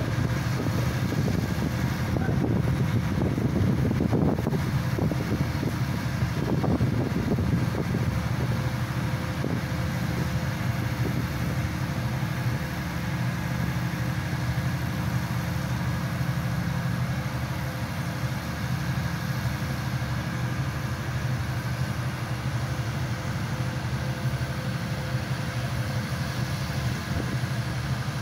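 Engine of a hydraulic static pile driver running steadily, with a low hum and extra rumbling in the first few seconds.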